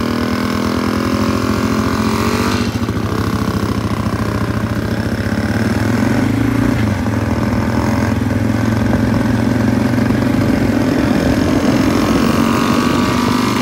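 Motorcycle engines running as the bikes ride along at low speed. The steady exhaust note rises and falls in pitch a few times as the throttle changes.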